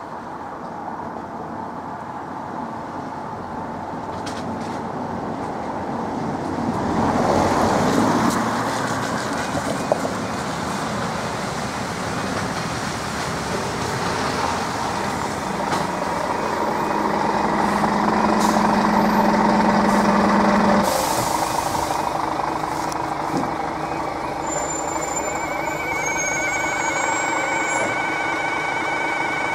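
Road vehicles pass over the level crossing twice, the second with a steady low engine hum that cuts off. About three-quarters of the way through, the level crossing alarm starts sounding steady high-pitched tones.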